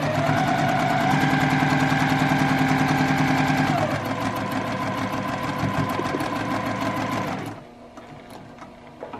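Sewing machine stitching a seam through pieced quilt fabric at speed: a rapid, even stitching rhythm over a motor whine, easing off a little about four seconds in and stopping abruptly about seven and a half seconds in, followed by a few faint clicks.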